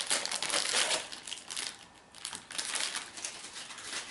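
Crinkling and rustling of packaging as a small cardboard box holding a light socket is handled. The crinkling is dense for about the first second, then breaks into scattered rustles and light taps.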